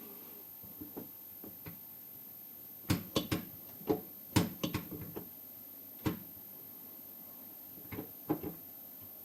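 Clusters of sharp knocks and clicks as a car's center console is handled and pushed into place over the gear shifter, the busiest run about three seconds in and a few more near the end.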